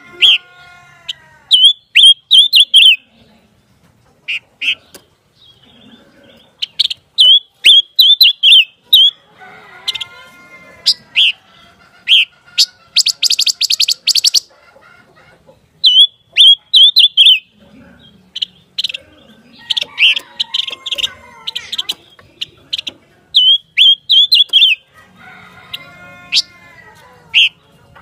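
Silver-eared mesia singing: short, quick bursts of bright notes repeated every second or two, with a fast rattle about halfway through and lower, falling calls in between.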